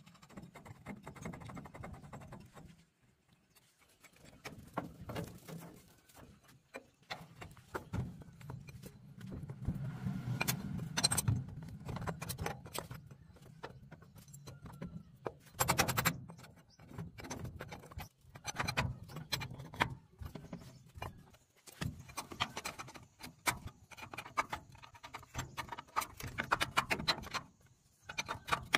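Metal hand tools clinking, scraping and knocking on the wheel hub and axle of a thresher as its small wheel is worked on, with a wrench on the axle nut; irregular clicks throughout and a few sharper knocks.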